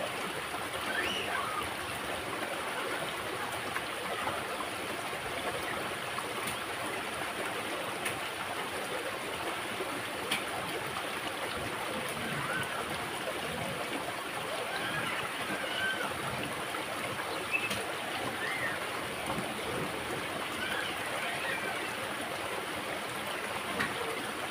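Steady rushing of a small river's flowing water.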